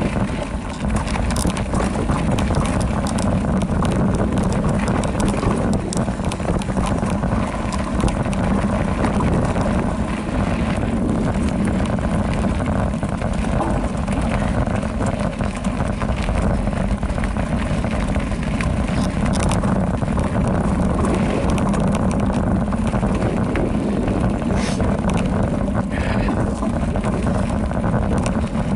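Specialized Rockhopper Comp mountain bike rolling fast down a dirt trail: steady tyre rumble with constant small rattles and knocks from the bike over rough ground, under wind buffeting the microphone.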